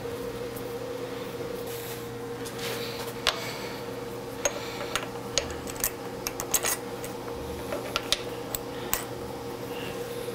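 Sharp metallic clicks and clinks of a 1/4-20 hand tap and its tap wrench being worked and handled in a steel part clamped in a drill-press vise. They come scattered from about three seconds in to about nine seconds, over a steady machine hum.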